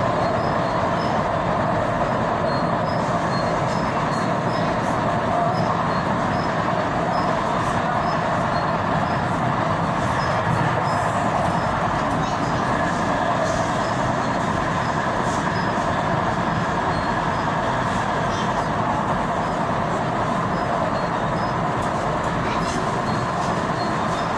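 Tyne and Wear Metro train running along the line, heard from inside the carriage: a steady rumble and hiss of wheels on rails, with faint regular ticks about twice a second.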